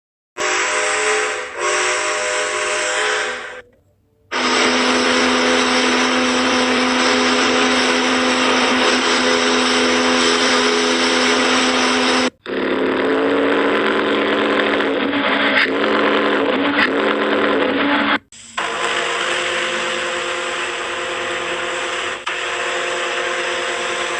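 Ship's whistles sounding long, steady blasts: several different chord-toned whistles one after another, each cut off abruptly before the next begins. One blast holds for about eight seconds. A steady hiss runs underneath.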